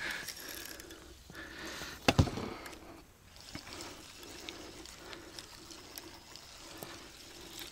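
Quiet trickling and dripping of water, with a single sharp knock about two seconds in.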